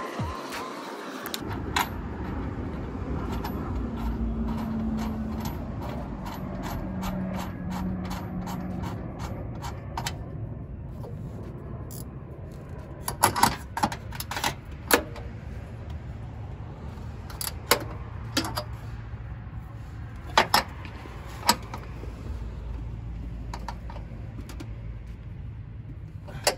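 Metal hardware clicking and clinking as washers and lock nuts are fitted onto the mounting studs of an aluminum skid plate held up under a car. A run of quick, regular ticks comes first, then scattered louder clinks, over a steady low hum.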